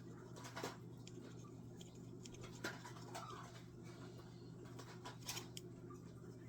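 Faint handling sounds: a few sharp clicks and scrapes of small objects being moved about, over a steady low electrical hum.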